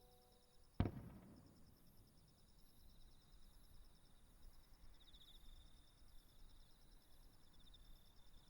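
A single firework bursting with a sharp bang about a second in, its boom rumbling and echoing away over the next second. Faint insects chirr steadily underneath.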